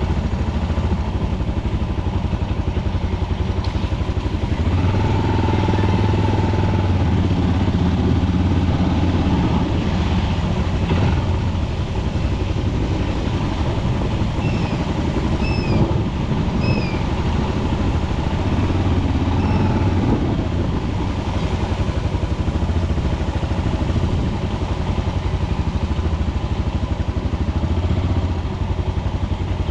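Motorcycle engine running steadily while riding. A few short, high, falling chirps come about halfway through.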